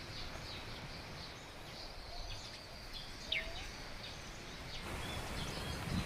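Spring forest ambience: small birds chirping over a steady outdoor hiss, with one quick rising call a little after three seconds in.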